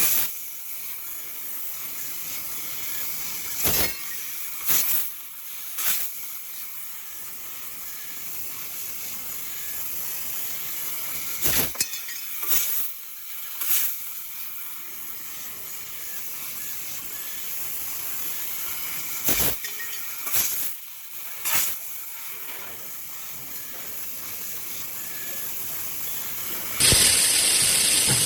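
2 kW fiber laser tube cutter running, with a steady hiss of assist gas at the cutting head. Short, louder bursts come in groups of three, repeating about every eight seconds, and the hiss grows louder near the end.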